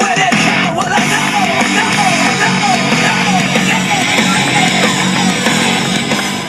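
Hard rock song playing, with a sung melody wavering over heavy guitars.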